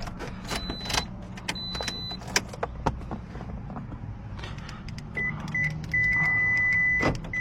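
Electronic beeps during the programming of a new car key fob. There are two steady high beeps early, then a run of short lower beeps with one long beep near the end, over scattered small clicks.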